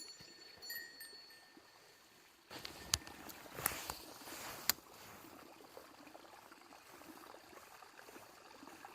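Mountain stream running, with a few short high chirps in the first second. About two and a half seconds in the rushing gets louder and several sharp clicks sound, then it settles to a steady flow.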